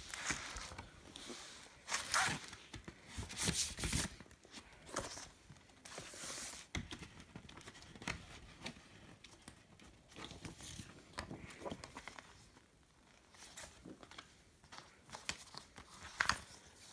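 Paper and thin card rustling and sliding as an LP's paper inner sleeves, jacket and printed insert are handled, in irregular bursts, with a sharper rustle near the end.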